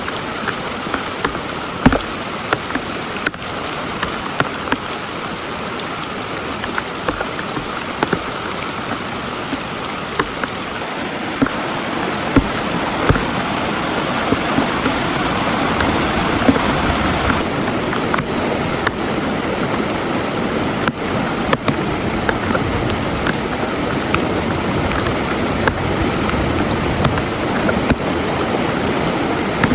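Heavy rain falling steadily, with frequent sharp hits of single drops. It grows heavier from about ten seconds in.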